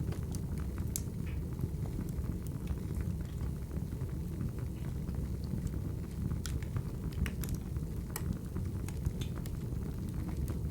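Crackling wood fire: a steady low rumble of flames with irregular sharp pops and snaps, a few coming close together past the middle.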